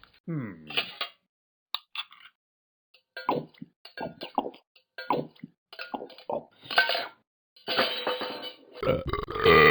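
A person burping on purpose: a short burp falling in pitch just after the start, then a run of short clicky gulping sounds, and a long, loud burp starting near the end.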